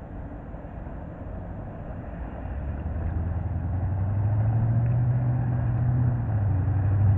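A low, steady engine drone that grows louder from about halfway through.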